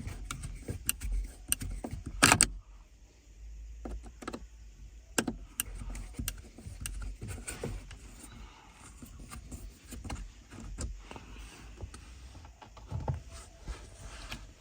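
Scattered light clicks and knocks of a screwdriver and plastic trim being handled while the T8 Torx screws holding the steering-column indicator stalk switch are undone, with the loudest clicks about two seconds in.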